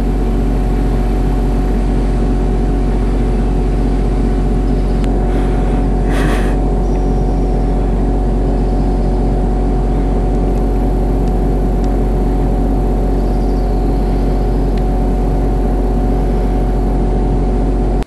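An engine running steadily at a constant speed, with an even hum and no change in pitch. A brief hiss sounds about six seconds in.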